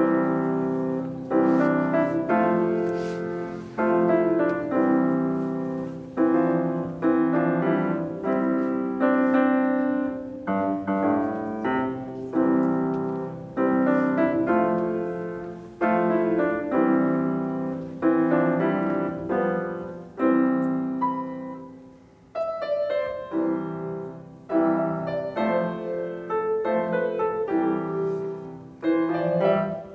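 Steinway grand piano played solo, a classical-style piece of struck chords and melody in phrases, coming in suddenly at the start, with a brief pause about two-thirds of the way through.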